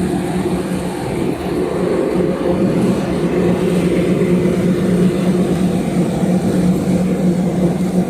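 Automatic bar soap production line machinery running: a steady, unchanging motor drone with a constant low hum.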